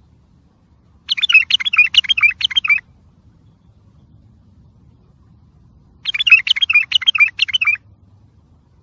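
Wild white-eared bulbul singing two short, rapid warbling phrases, each under two seconds long, about five seconds apart.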